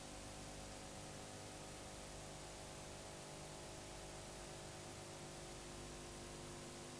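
Faint steady hiss with a low electrical hum, unchanging throughout: the background noise of an old videotape soundtrack with no other sound on it.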